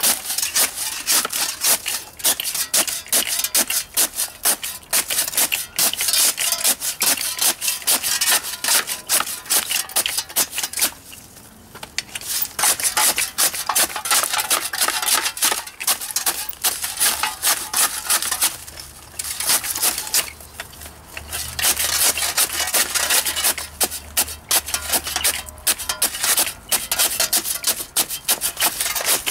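Two spades chopping up and down in a galvanised metal bucket, crushing and grinding lumps of damp biochar in rapid, continuous strokes, with a short break about eleven seconds in.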